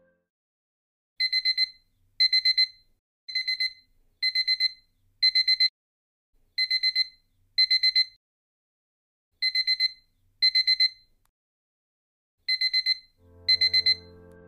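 Electronic alarm clock beeping a wake-up alarm: bursts of four quick high beeps, about one burst a second, with a few short pauses between them.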